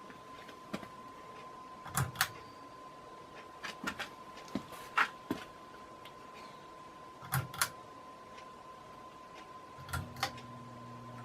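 Hampton Bay Carousel II ceiling fan running on low speed: a steady faint high whine with scattered sharp clicks, mostly in pairs. A low hum comes in near the end.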